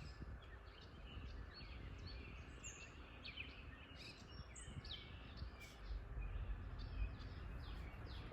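Small birds chirping and singing, many short quick calls scattered throughout, over a low steady rumble.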